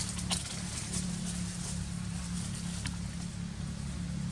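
A steady low hum, with a few sharp crackles of dry leaves under a macaque moving over leaf litter.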